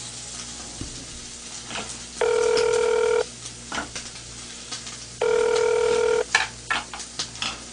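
Phone-call ringback tone heard over a mobile phone's speaker: a steady beep lasting about a second, repeating every three seconds, twice, while the call rings unanswered. A few short clicks come just after the second beep.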